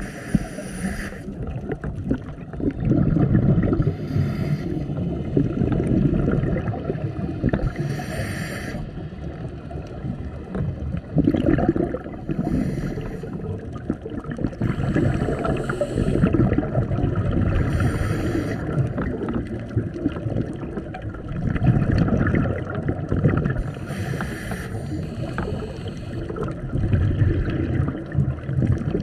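A scuba diver breathing through a regulator underwater: a short hissing inhale every few seconds, each followed by a longer low bubbling rumble of exhaled air.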